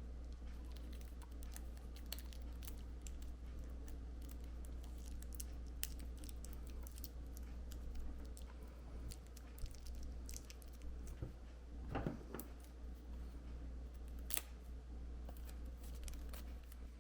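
Light scattered clicks and crinkles of hands working tape and wrapping material around a battery pack, with a short rustling scrape about twelve seconds in and a sharp click a couple of seconds later, over a steady low hum.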